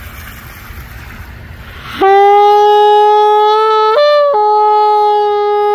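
Wind noise on the microphone, then about two seconds in a shofar sounds one long, loud blast. Its pitch jumps up briefly midway and drops back.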